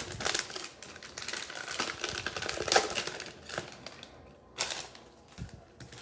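Trading-card pack wrappers crinkling and cards being handled, a quick run of clicks and rustles that thins out after about four seconds.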